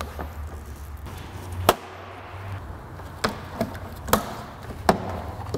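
Plastic push-in retainer clips snapping into the Acura TL's plastic upper radiator cover as it is pressed into place by hand. About five sharp clicks are heard, the loudest about a second and a half in, over a low steady hum.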